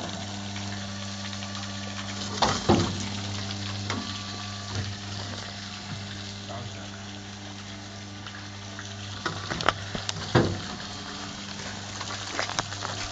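Excavator's diesel engine running steadily, with a few sharp knocks and clanks from the machine as it works, a pair about two and a half seconds in and a cluster near ten seconds.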